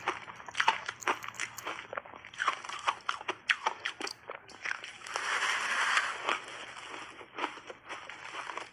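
Close crunching and chewing of shaved ice coated in matcha and milk powder: many sharp, irregular crunches, with a longer, louder crunch about five seconds in.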